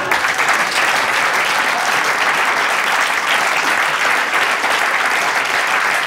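Studio audience applauding, a dense steady clapping that starts suddenly and keeps up without a break.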